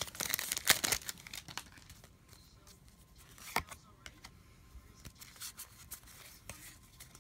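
Foil wrapper of a Pokémon trading card booster pack tearing and crinkling for the first second or so as it is ripped open. Quieter rustling of the cards being handled follows, with one sharp tap about three and a half seconds in.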